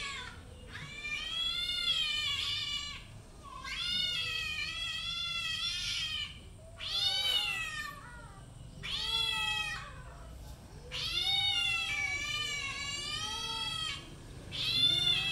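Cat meowing repeatedly: about six long, high-pitched, wavering meows with short pauses between them.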